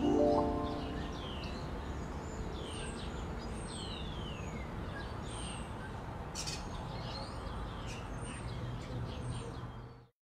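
Small birds chirping, with many short calls sliding down in pitch, over a steady background hiss. A chime-like struck note dies away at the start, and the sound cuts off suddenly near the end.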